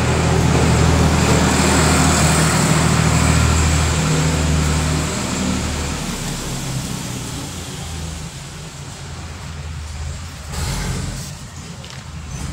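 A motor vehicle engine running, loud for about the first five seconds and then fading away, with a brief noise about ten seconds in.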